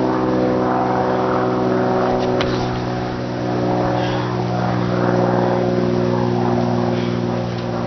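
A motor running steadily at a constant pitch, with a few faint clicks over it.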